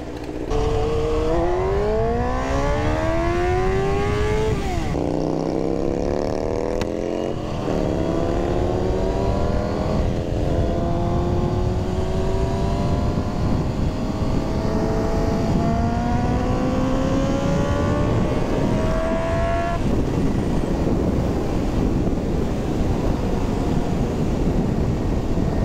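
Suzuki GSX-R 600 inline-four sport bike engine accelerating hard from a stop. The revs climb, drop sharply at gear changes about five and seven and a half seconds in, then climb slowly for about twelve more seconds. In the last few seconds wind rush drowns out the engine.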